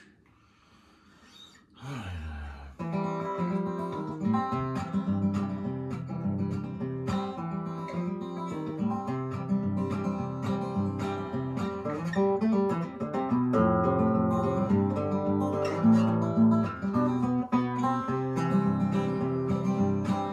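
Acoustic guitar playing a steady strummed chord pattern, starting about three seconds in: the instrumental intro to a song.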